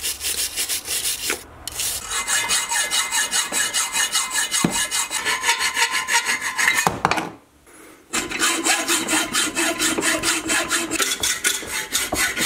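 A brush scrubs plaster off a cast gold spike for the first second or so, then a hacksaw cuts through the 18K gold casting in even back-and-forth strokes. The sawing stops briefly a little past the middle, then resumes.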